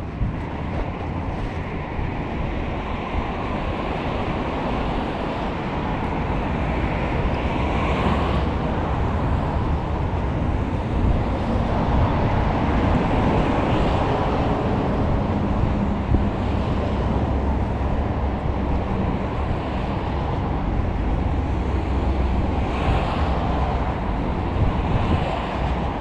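Wind buffeting the microphone in a steady low rumble, with choppy sea waves washing against a seawall.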